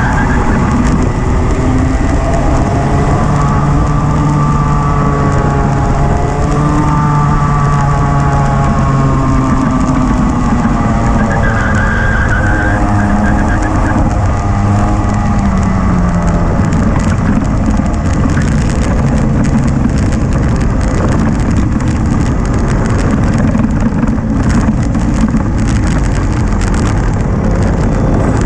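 Rotax two-stroke kart engine heard onboard, rising and falling in pitch through the corners. From about ten seconds in its note falls away as the kart slows. In the last part the engine note fades under a rough, even rumble.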